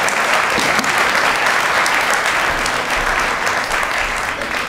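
Audience applauding: many hands clapping together in a dense, steady patter that begins to ease off near the end.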